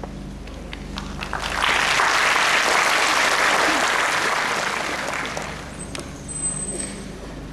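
Audience applauding: a few scattered claps build into dense applause about a second and a half in, which fades out over the following few seconds, with a few last claps near the end.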